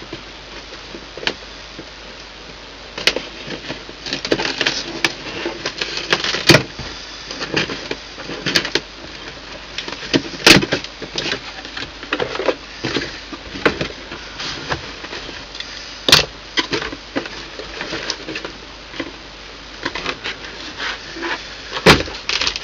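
Cardboard parcel being opened by hand: flaps pulled back and the packing rustled, with irregular scraping, crinkling and sharp knocks of cardboard handled and set down.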